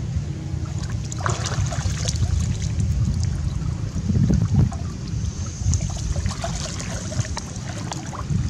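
Light splashing and dripping water as a wet macaque climbs out of a pond, with scattered small splashes, over a steady low wind rumble on the microphone.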